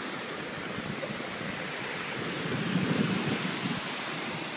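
Rough surf breaking on a sandy beach, a steady rush of waves that swells about halfway through, with wind buffeting the microphone.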